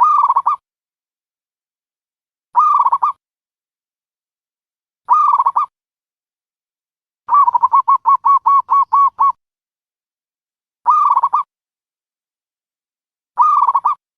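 Dove cooing: short calls repeated about every two and a half seconds, with a quicker run of about ten short notes about halfway through.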